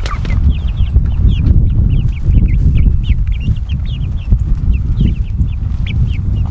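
A flock of young Silkie chickens peeping, many short high chirps a second, over a loud, steady low rumble.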